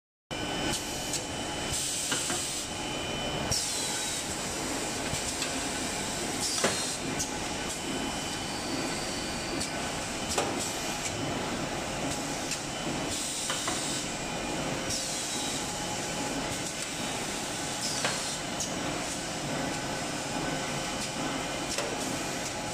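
DS-JG square air fryer paper liner forming machine running: steady mechanical noise with sharp knocks and short bursts of air hiss every few seconds as it presses and ejects liners.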